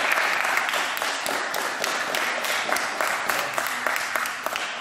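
Applause: a group of people clapping together, thinning out and getting quieter toward the end.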